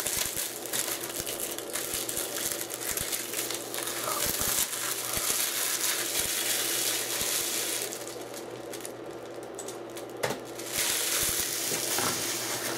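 Plastic protective wrapping being peeled and crinkled off a Blu-ray case: continuous crackling rustle with small clicks, easing off for a couple of seconds past the middle, then picking up again.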